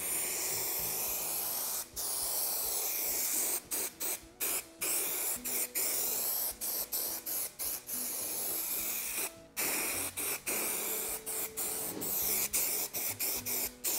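Aerosol can of Hi-Strength 90 spray contact adhesive hissing steadily as it coats a wood end-skin panel. The spray is cut by many brief stops as the nozzle is let go and pressed again, with one longer break about two-thirds of the way through.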